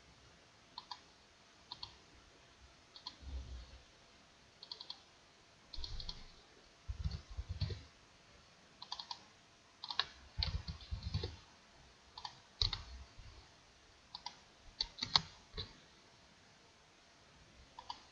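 Computer mouse clicks at irregular intervals, many in quick double-click pairs, with a few keystrokes and some dull low bumps from handling on the desk.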